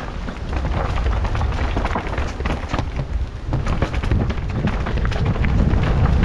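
Mountain bike descending a rocky, rooty downhill trail: a steady stream of knocks and rattles from the tyres and bike over the rocks, under wind rushing on the helmet camera's microphone.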